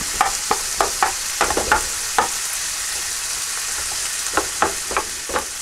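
Cooked rice frying in hot sunflower oil in a frying pan, with a steady sizzle and irregular taps and scrapes of a utensil breaking the rice up. The taps cluster in the first two seconds and again near the end.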